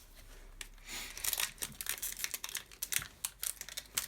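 Foil wrapper of a Pokémon trading-card booster pack crinkling as it is torn open by hand, a quick run of sharp crackles starting about a second in.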